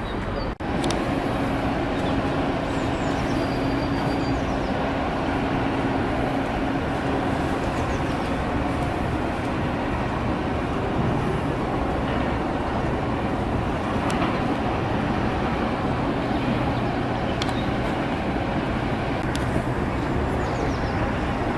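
Steady vehicle engine hum over continuous traffic and street noise, with a momentary dropout just after the start.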